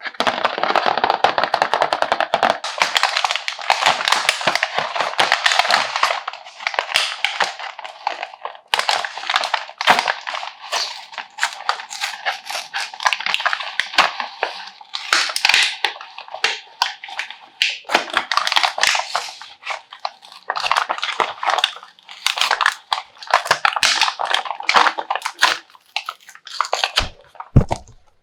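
Plastic packaging crinkling and rustling with many small clicks and crackles, as toys are handled and unwrapped.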